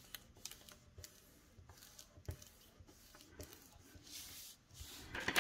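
Hands pressing and smoothing patterned paper onto a glued cardstock frame: faint paper rustles and small taps, with a brief soft swish about four seconds in.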